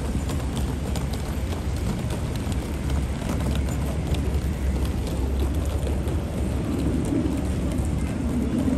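City street ambience: a steady low rumble of road traffic, with scattered small clicks over it.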